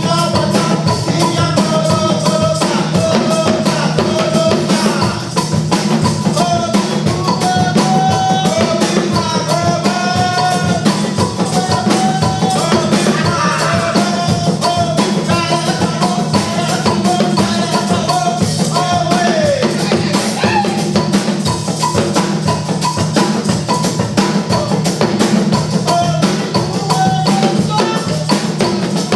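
Music: a song with a steady, busy drum beat under a melody line that bends and slides in pitch.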